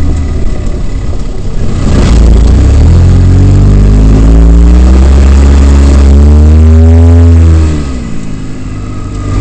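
Polaris RZR side-by-side's engine under throttle, heard from inside the open cab: its note climbs steadily for several seconds, then drops and quietens as the throttle comes off, and picks up again at the end, over a constant rush of road and wind noise.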